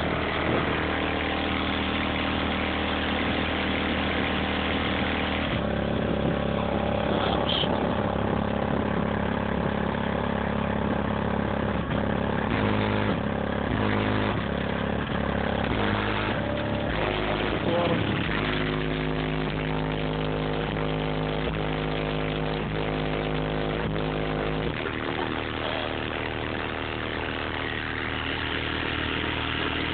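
A hip-hop track played loud through DD Audio 9512 12-inch subwoofers in a car's trunk, heard from outside the car. Deep held bass notes shift pitch every few seconds.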